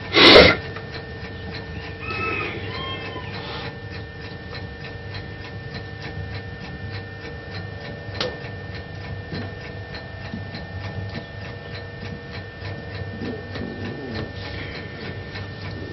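Even, steady ticking over a faint hum, with a sudden loud burst of noise right at the start and a short, high, wavering call about two seconds in.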